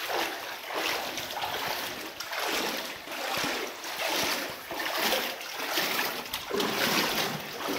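Legs wading through thigh-deep water, with a swishing splash at each stride, about one a second.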